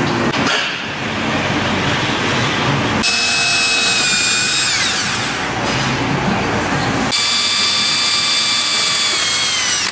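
Cordless drill boring 3/16-inch rivet holes through a plastic air box. It runs twice, starting about three seconds in, in two high whines whose pitch drops as each run winds down.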